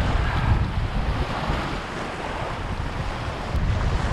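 Wind buffeting the microphone in a steady, gusty rumble over small waves washing in shallow water.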